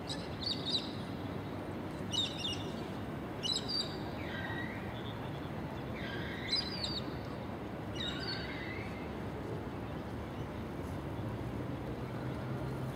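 Birds chirping: about half a dozen short, high calls over steady outdoor background noise. A low steady hum comes in near the end.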